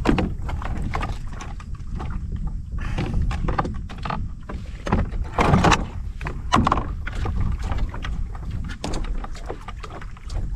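A stand-up paddleboard being paddled: irregular paddle strokes splashing in the water and knocking against the board, with a steady low rumble underneath.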